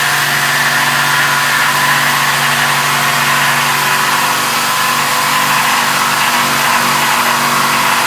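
A motor-driven machine running steadily, with a low hum under a loud rushing hiss. It starts abruptly at the beginning.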